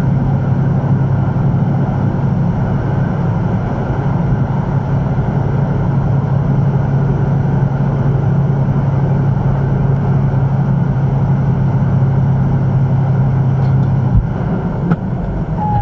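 Steady engine drone and road noise of a large truck at highway cruising speed, heard from inside the cab, with a strong low hum that drops away about fourteen seconds in.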